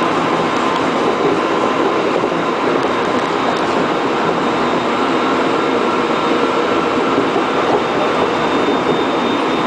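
Interior running noise of a Korail 311000-series electric multiple unit travelling at speed, a steady rushing rumble of wheels on rail with a faint steady whine on top, heard from inside the passenger car.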